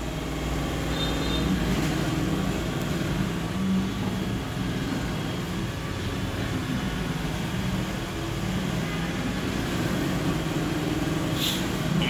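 Steady low rumble of road traffic, swelling now and then as vehicles pass.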